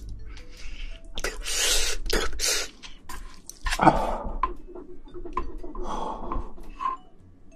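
Close-miked eating sounds: the shell of a whole cooked shrimp crackling as it is peeled by hand, then a ladle scooping ramen noodles and shrimp out of broth in a stone pot, with short clicks and wet sloshes.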